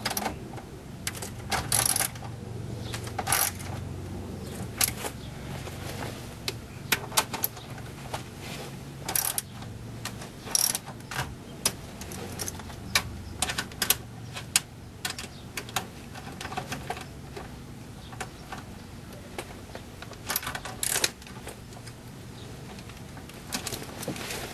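Ratcheting 10 mm socket wrench tightening the mounting bolts of a car DVD player unit in its metal bracket: a long series of irregular sharp clicks and metallic ticks.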